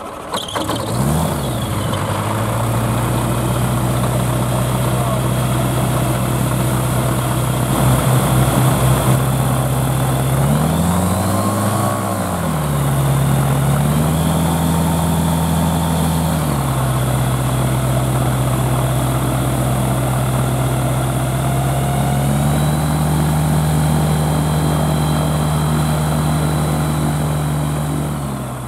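Engine of a Magni Gyro Orion M24 gyrocopter catching about a second in and running at idle, driving its pusher propeller. The revs rise and fall once briefly about 11 seconds in, are held a little higher for a couple of seconds, then settle and are raised again and held for the last few seconds.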